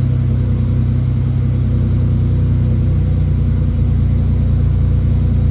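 GMC Typhoon's turbocharged 4.3-litre V6 idling fast while it warms up, its speed set by a newly installed idle air control valve. The pitch shifts slightly about two seconds in as the idle adjusts.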